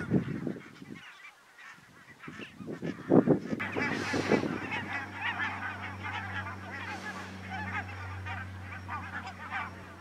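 A flock of barnacle geese calling: a few loud honks near the start and again about three seconds in, then a dense, continuous yapping chatter of many birds at once.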